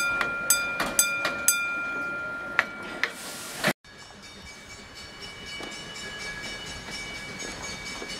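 Narrow-gauge passenger cars rolling slowly past, the wheels clicking over the rail joints two or three times a second over a steady ringing tone. A short hiss follows, then the sound cuts off abruptly and gives way to a quieter, steady background with faint high tones.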